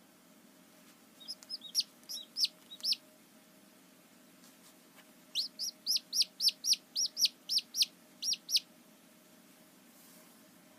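A hatching chick peeping from inside its broken-open shell. First a few scattered peeps, then after a short pause a quick, even run of about a dozen sharp peeps, about four a second, each rising and falling in pitch.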